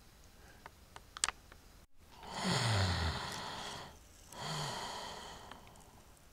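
A person sighing twice: a long sigh with the voice falling in pitch, then a shorter, breathier sigh. A few faint clicks come before them.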